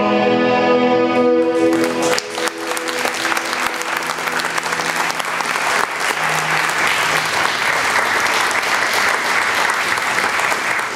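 Music holds a sustained final chord that ends about two seconds in. An audience then applauds steadily, many hands clapping.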